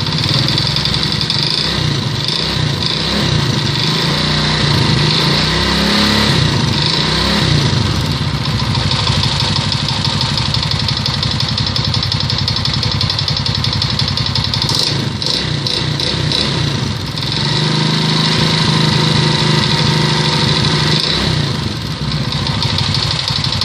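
Alpha 110 moped's single-cylinder four-stroke engine running with a strong, distinctive knock, speeding up briefly twice. The knock persists after a crankshaft replacement, and its cause is unknown.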